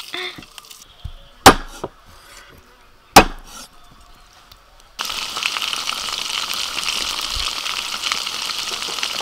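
Two sharp knife strikes through eel on a wooden chopping board, about a second and a half and three seconds in. Then, starting suddenly about five seconds in, eel pieces sizzling steadily as they fry in hot oil.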